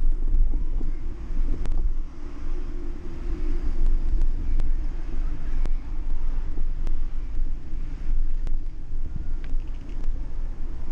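Wind buffeting the microphone of a bicycle-mounted action camera while riding, a steady heavy rumble, with scattered sharp clicks and rattles.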